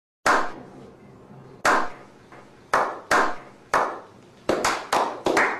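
A slow clap: single hand claps about a second apart, each with a short echo, quickening near the end into a faster run of claps by several people.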